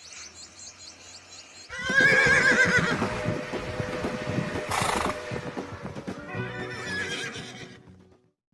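Horse whinnying: a loud, wavering neigh about two seconds in and a second, shorter one near the end, over a rapid clatter.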